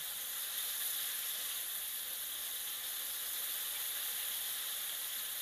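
Flour-coated chicken pieces deep-frying in hot oil in a wok: a steady, even sizzle.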